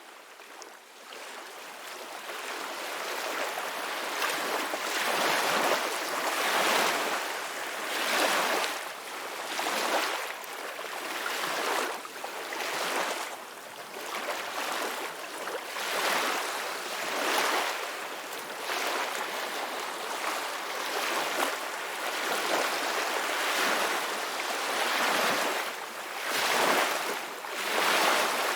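Ocean waves breaking and washing ashore: a continuous rushing hiss that swells and ebbs every second or two. It fades in from silence over the first few seconds.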